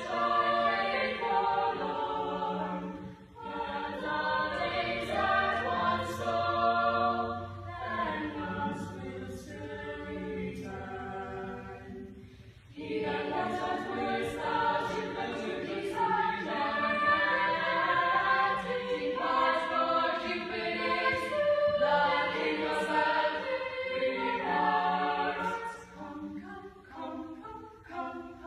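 Small mixed choir of men's and women's voices singing together in parts, pausing briefly between phrases about 3, 12 and 26 seconds in.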